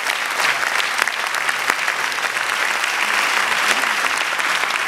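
Audience applauding: many hands clapping in a steady, dense applause.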